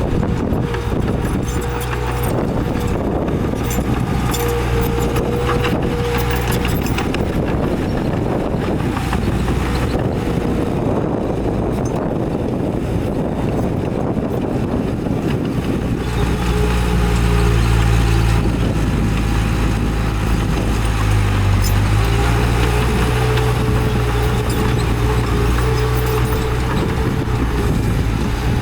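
Heavy diesel engines of a bulldozer and dump trucks running, with scattered metallic clanks and rattles. The engine note changes pitch a little past the middle.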